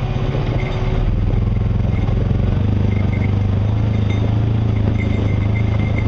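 Off-road vehicle's engine running with a low, steady drone while crawling down a steep, rocky dirt trail, with some clatter from the rough ground.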